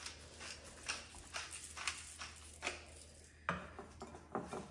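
Hand pepper mill grinding peppercorns in a string of short, gritty rasps, one turn after another at an uneven pace. About three and a half seconds in comes a louder knock, and then soft handling sounds as gloved hands work the raw lamb chops in a glass bowl.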